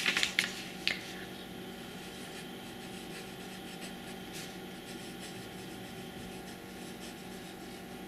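A broad fountain pen nib writing on paper, with faint, soft scratches of the pen strokes over a steady low room hum.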